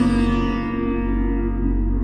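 Slow meditative music: a plucked string note rings and slowly fades over a steady low drone.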